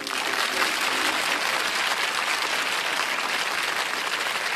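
Studio audience applauding steadily, greeting the game-show host's entrance.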